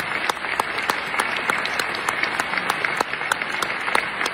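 Audience applauding, with the sharp claps of someone close by standing out at about three a second over the crowd's applause.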